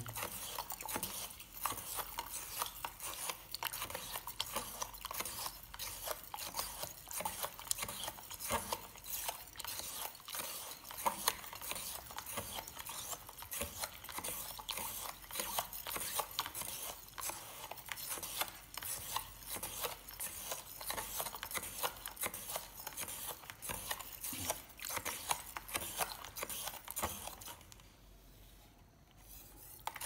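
A kitchen knife stirring salt that has not yet dissolved into water in a plastic measuring jug: fast, continuous scraping and clicking of the blade and salt against the jug's bottom and sides. It stops about two seconds before the end.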